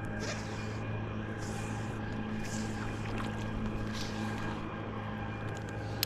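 Steady low engine hum at an even, unchanging pitch, with a few faint brief swishes over it.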